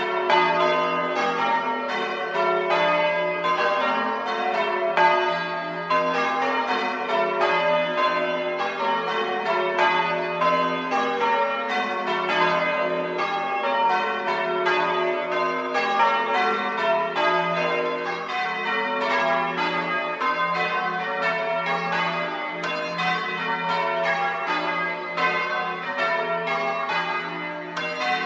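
Six church bells change ringing, struck one after another in a rapid, even succession with their tones ringing on and overlapping, heard close up from inside the bell tower.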